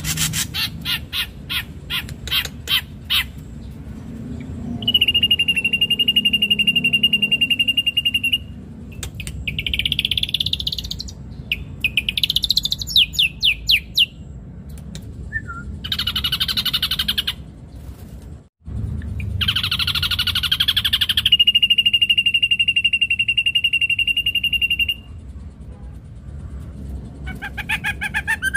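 Ashy drongo singing a varied song: a rapid run of clicks, long steady whistled notes, rising sweeping phrases and harsh rasping calls.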